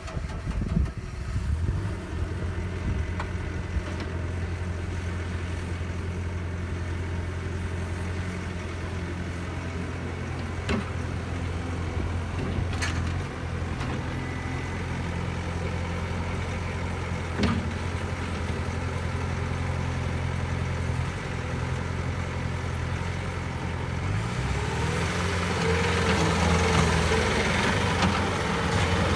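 Bobcat S510 skid steer's diesel engine starting, then idling steadily, with a few sharp clicks. About 24 seconds in, the revs rise and the engine runs louder at a higher speed.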